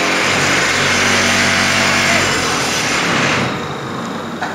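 Interlocking paver block making machine running: loud, dense mechanical noise over a steady hum, which drops off noticeably about three and a half seconds in.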